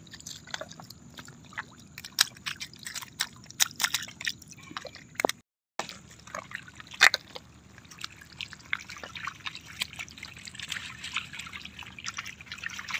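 Shallow water dripping, trickling and splashing in short irregular patters as a hand sweeps through it over a net holding small fish and giant freshwater prawns, with one sharp splash about seven seconds in. The sound drops out for a moment near the middle.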